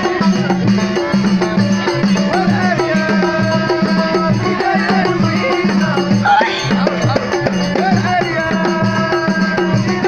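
Moroccan street folk music: a banjo and singing voice over a steady beat of frame drum and small hand drums.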